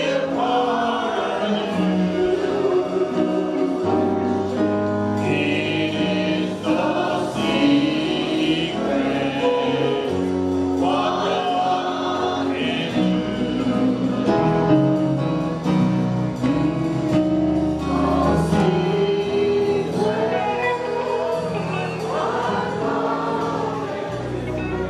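Gospel choir singing over instrumental accompaniment, with sustained bass notes that change step by step under the voices.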